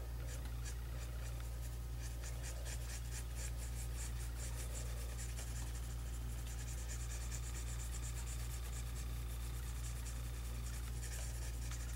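Pencil scratching on paper in quick, short shading strokes, most of them in the first half, over a steady low hum.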